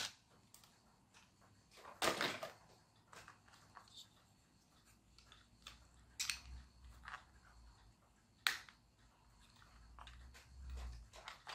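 Faint clicks and knocks of small 3D-printed plastic parts being handled and pushed together on a toy car chassis. A few sharp ticks stand out, about two, six and eight and a half seconds in, with soft low handling rumble between them.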